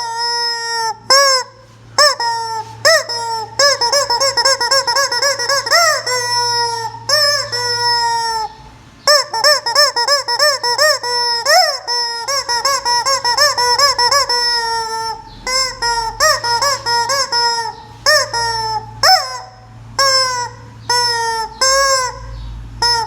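Squeaky rubber chicken toy squeezed over and over, giving rapid runs of short, rising-and-falling squawks.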